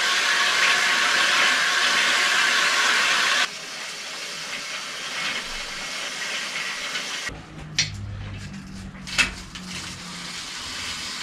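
Compressed air hissing steadily into a flat bicycle tyre, cutting off suddenly after about three and a half seconds. Softer handling noise follows, then a low hum with a few sharp clicks near the end.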